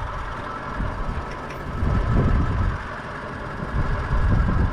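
A four-wheel drive's engine running, with a steady noisy hum and louder low rumbling swells about two seconds in and again near the end.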